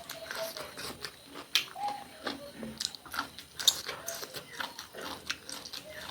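A person chewing and biting food, with irregular wet mouth clicks and smacks; sharper bites stand out about a second and a half in and again a little past halfway.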